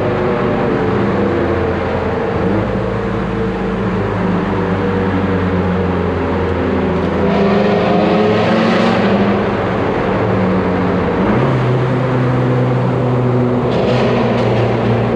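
Mazdaspeed3's turbocharged four-cylinder running through a full CPE exhaust with a catless downpipe, a steady drone whose pitch shifts a few times as the car is driven. A rushing hiss rises over it about seven seconds in and again near the end.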